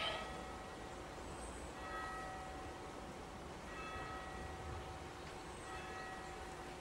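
A church bell striking roughly every two seconds, each stroke a ringing tone with overtones that dies away, over a steady low rumble of wind on the microphone. A brief knock right at the start is the loudest sound.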